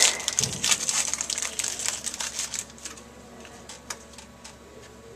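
A trading-card pack wrapper being torn open and crumpled, a dense crackling crinkle that dies down about two and a half seconds in, followed by a few soft clicks of cards being handled.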